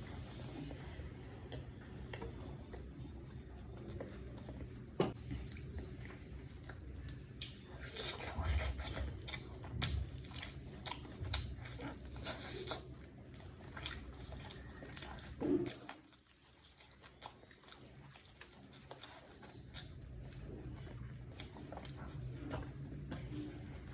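Close-miked chewing of a mouthful of chicken biryani: wet mouth clicks, smacks and crunches, busiest about a third of the way in and sparser near the end.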